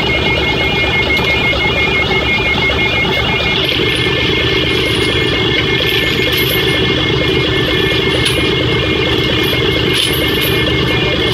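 Heavy diesel machinery engine running steadily, with a rapidly pulsing high beep over it that is strongest in the first few seconds.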